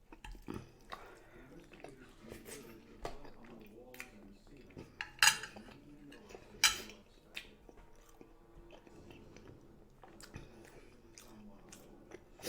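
Close-up wet chewing and mouth sounds of a toothless eater gumming food, broken by scattered sharp clicks and clinks; the two loudest come about five and six and a half seconds in.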